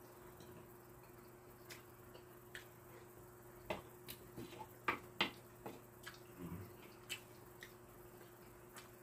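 Quiet eating sounds: a spoon and chopsticks clicking against a ceramic bowl, with soft wet mouth sounds. A cluster of sharp clicks comes from about four to seven seconds in, over a faint steady hum.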